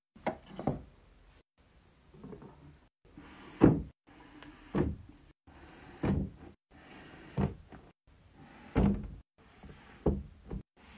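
Books being set down and pushed upright against each other on a shelf: about nine separate knocks and thuds, roughly one a second, with a quick double knock near the start and another near the end.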